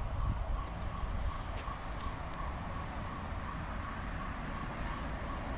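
Crickets chirping in a steady, evenly spaced rhythm over a low rumble.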